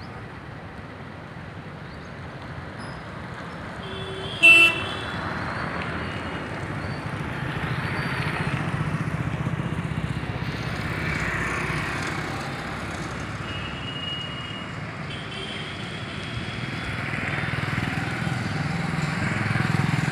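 Street traffic: motorcycles and cars passing, their engine noise swelling and fading in turn, with a few short horn toots, the loudest about four and a half seconds in.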